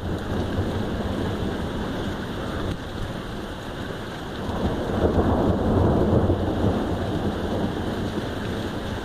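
Heavy rain falling steadily, with a rumble of thunder that swells about halfway through and then fades.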